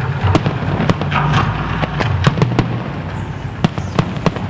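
Fireworks display: aerial shells bursting overhead in a string of sharp bangs and crackles at irregular intervals, over a steady low hum.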